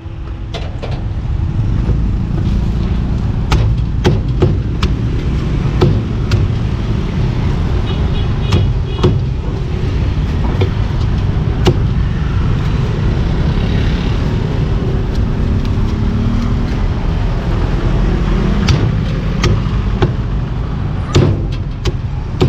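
Steel cleaver chopping a whole roast pork leg on a wooden chopping block, sharp knocks coming at irregular intervals with a pause in the middle. A steady rumble of road traffic runs underneath.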